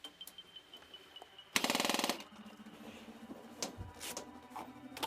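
Airsoft gun firing a short full-auto burst of rapid, evenly spaced shots lasting about half a second, followed by a few separate single clicks.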